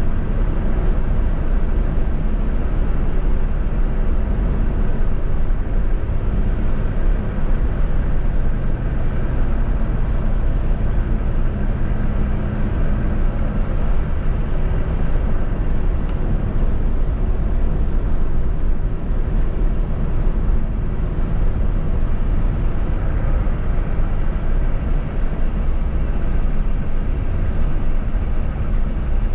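A vehicle travelling at speed on a highway: steady, loud road and engine noise that holds even throughout.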